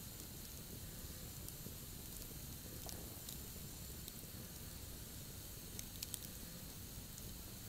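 Wood campfire burning with a steady faint hiss and scattered crackles, including a quick cluster of pops about six seconds in.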